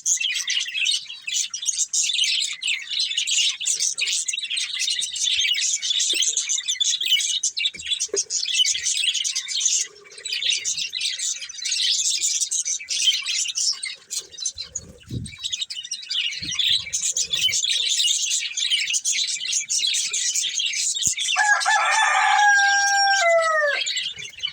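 Budgerigars chirping and chattering without a break, a dense high warbling. Near the end a lower, drawn-out call sounds for about two seconds and falls in pitch as it ends.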